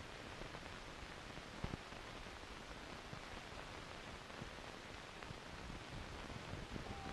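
Steady hiss of an old film soundtrack, with two faint clicks a little under two seconds in.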